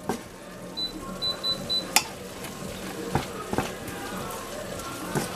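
Slotted wooden spatula stirring vegetables and rice noodles in a nonstick frying pan over a steady sizzle, with a few sharp knocks of the spatula against the pan, the loudest about two seconds in.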